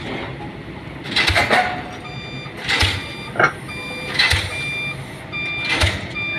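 Diesel pile-driving hammer (DD 55) striking a precast concrete pile, one heavy blow about every second and a half, four blows in all. A high, broken beeping runs under the blows through the middle.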